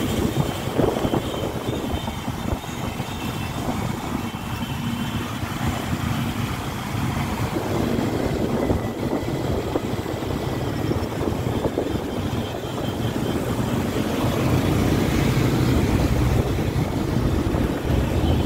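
Many motorcycle engines running together, a steady dense noise with no letting up.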